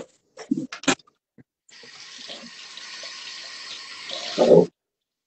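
Water running from a tap into a sink, starting about a second and a half in and cutting off abruptly about three seconds later, with a thump just before it stops. A few clicks and knocks come before the water starts.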